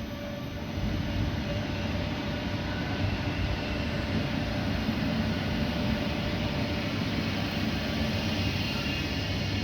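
DB Class 425 electric multiple unit pulling out, a steady rumble with thin, steady whining tones from its traction equipment.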